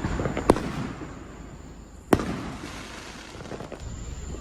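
Fireworks going off: two sharp bangs about a second and a half apart, the second the loudest, with a few fainter pops around them.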